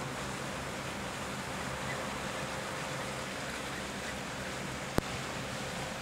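Steady outdoor background noise with a low hum, and one sharp click about five seconds in.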